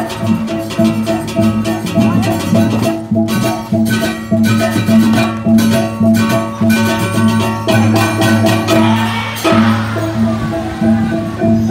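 Balinese gamelan music for a Barong dance: sustained ringing tones under a busy run of sharp metallic cymbal-like strokes. About nine and a half seconds in, the texture changes and the strokes thin out.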